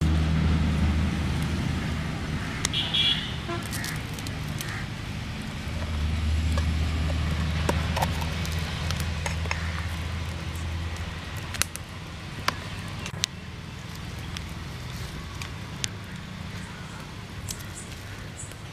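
Low engine rumble of a motor vehicle running close by. It swells twice, then fades away, with a few sharp clicks and knocks over it.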